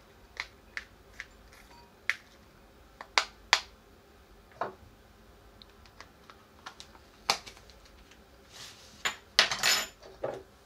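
Spoon scraping and tapping against a small plastic tub as a chopped topping is spooned onto a bowl of food: scattered sharp clicks and taps, with a louder run of clatters near the end.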